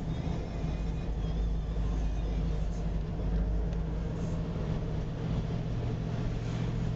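Steady low drone of a bus's engine and road noise, heard from inside the passenger cabin while it drives along.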